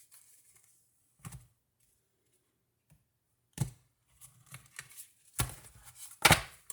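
Deck of oracle cards being handled: several sharp taps and slaps of cards, the loudest near the end, with light rustling of cards in between.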